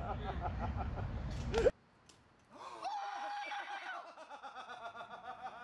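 Excited laughter and giggling from people watching a launched water balloon. The sound cuts off abruptly a little under two seconds in, then resumes with a long high-pitched held voice and more laughter.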